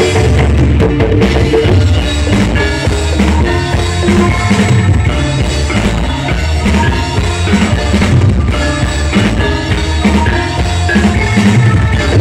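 Loud music played through a large PA sound system during a sound check, with a drum kit and a heavy bass beat.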